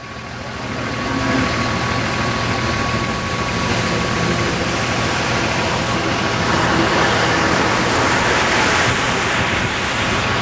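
Steady rushing wind noise buffeting the stopped vehicle and microphone, over the vehicle's engine idling. It builds over the first second or so, then holds.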